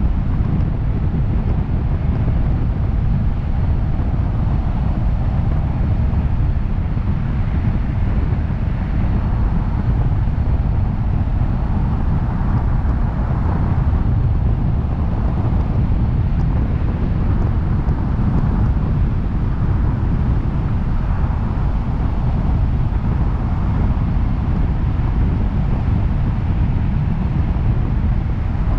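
Steady road and wind noise of a car driving at speed through a road tunnel, picked up by a microphone on the outside of the car. A constant low rumble of wind buffeting the microphone dominates, with a softer rushing above it.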